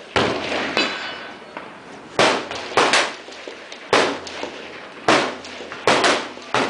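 Rifle shots on a shooting range: about six sharp reports at irregular intervals, some under a second apart, each trailing off in a short echo.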